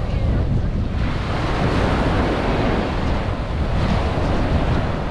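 Small surf breaking and washing up a sandy beach, with strong wind buffeting the microphone as a low rumble. The hiss of the wash swells twice, about a second in and again near the end.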